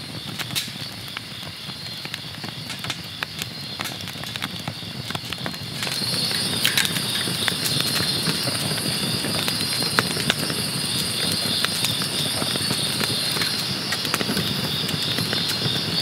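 Firewood crackling and popping irregularly as it burns in a metal fire can, over a steady high trill that grows louder about six seconds in.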